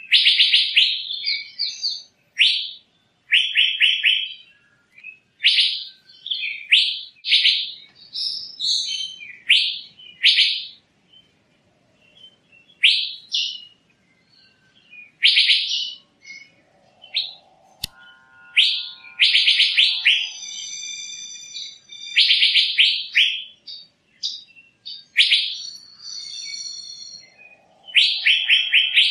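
Asian fairy-bluebird calling: repeated short bursts of rapid, sharp chattering notes, with a few longer, clearer ringing notes past the middle and near the end.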